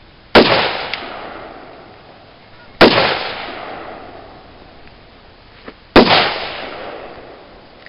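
Three gunshots, about two and a half and three seconds apart, each ringing out and fading over a couple of seconds.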